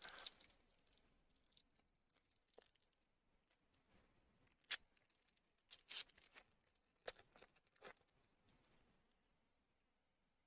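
Trading cards being handled and shuffled through by hand: a scattering of soft clicks, slides and crinkles of card stock, the sharpest about five and six seconds in.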